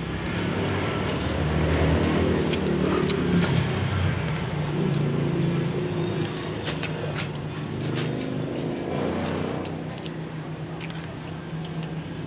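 A motor vehicle engine running steadily with a low hum, swelling slightly twice, with a few faint clicks over it.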